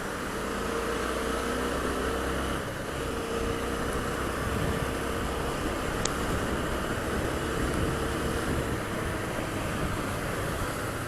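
Honda CB 250F Twister's single-cylinder engine running steadily at cruising speed under a constant rush of wind and road noise.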